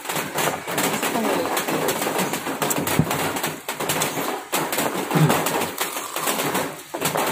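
Steady patter of rain with crunching bites of crispy fried chicken. Birds call in the background.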